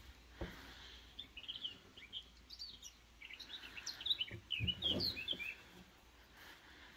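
Small songbirds chirping in quick, busy runs of short notes for several seconds, with a couple of dull low thumps about half a second in and again near five seconds.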